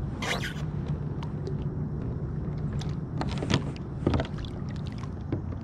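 Low steady rumble of water and wind around a kayak. A short burst of noise comes just after the start, then splashing about three to four seconds in as a bass is lowered back into the water.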